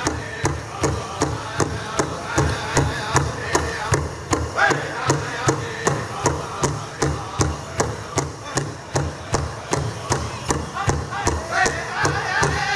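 Powwow drum group striking a large shared hand drum in a steady beat of about three strikes a second, with high voices singing over it; the singing grows fuller near the end.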